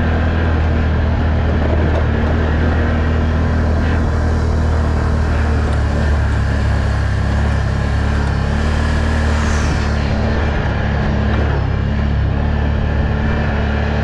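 Can-Am off-road vehicle's engine running at a steady speed while riding, with a haze of wind and rolling noise over it.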